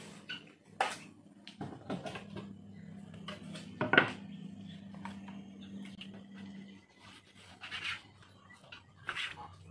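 Kitchen handling sounds: a metal pot and a large knife knocked and clinking against a tiled counter and a wooden cutting board, with one sharp knock about four seconds in. Near the end come a few strokes of the knife cutting tripe on the wooden board. A low steady hum sits under the middle few seconds.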